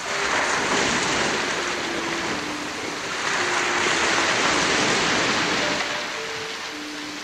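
Ocean waves washing in, two swells that each build and fade over about three seconds, under a soft, slow melody of held notes.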